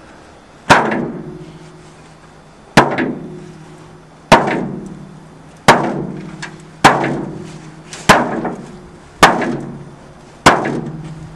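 An object struck hard eight times, about one to two seconds apart, each hit ringing on with a low hum as it fades, like a clang.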